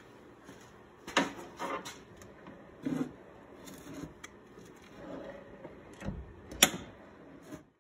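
Several clunks and metallic knocks with rustling between them, the sharpest one near the end, as a newly fitted hydraulic clutch slave cylinder on a 1978 Jeep CJ7 pushes the clutch fork against its return spring.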